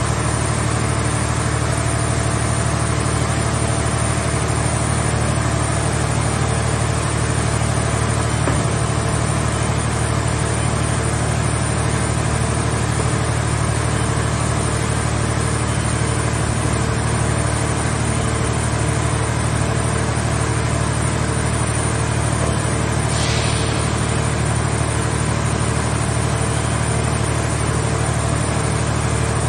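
Hydraulic power unit of a mobile scrap car baler running steadily with a deep, even hum as the grab arm is worked, with a brief hiss about 23 seconds in.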